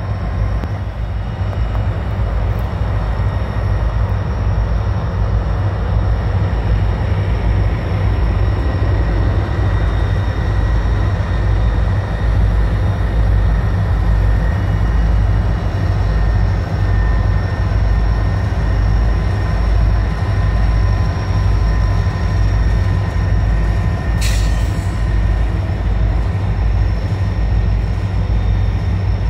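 Freight train rolling past, first its locomotives and then its freight cars, with a steady low rumble. A short sharp noise cuts through near the end.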